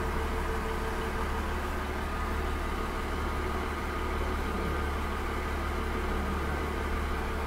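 Cummins DMF14HZ diesel engine of a KiHa 40 railcar idling: a steady deep hum with a few constant higher tones above it.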